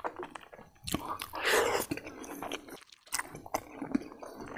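Close-up chewing of tender pressure-cooked buffalo leg meat and rice: a quick, irregular run of small mouth clicks, with a brief louder stretch about one and a half seconds in.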